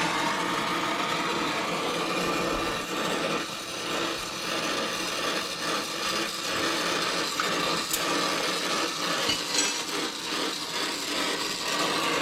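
Hand saw cutting with steady, rasping back-and-forth strokes.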